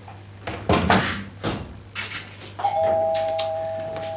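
A few sharp mechanical clacks from the typewriter being worked on, then about two and a half seconds in a two-tone door chime sounds ding-dong, a higher note followed by a lower one, both ringing on and slowly fading.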